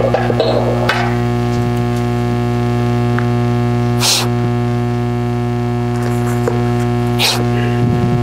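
Steady electrical mains hum, a low buzz with many overtones, with a few short rustles and clicks: one about a second in, one at four seconds and one past seven seconds.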